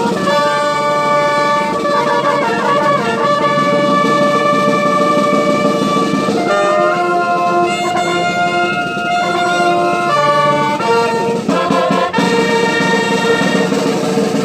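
Brass band playing a slow tune in long held chords.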